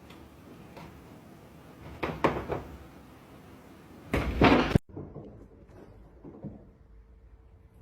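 A few sharp knocks, then a loud, heavier thud about four seconds in.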